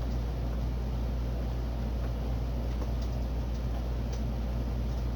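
Steady low background hum with a few faint, light clicks from about two seconds in.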